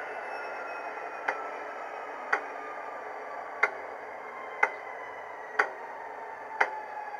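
Class 66 diesel sound from a TTS DCC sound decoder, played through the model's small EM2 speaker while the locomotive stands still: a steady whine slowly falling in pitch, with a sharp tick about once a second.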